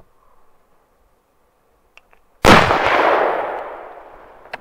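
A single hunting-rifle shot about halfway through, its report rolling away and fading over a second or so. Two faint clicks come just before it.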